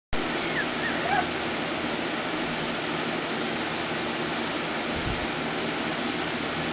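Steady rushing background noise, with a few faint, short, high puppy squeaks about half a second to a second in.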